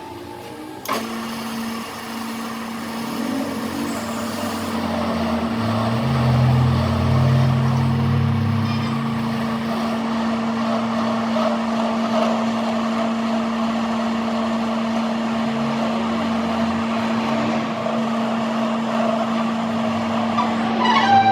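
A motor or engine starts about a second in and runs steadily with one constant hum, and a deeper rumble swells for a few seconds in the middle.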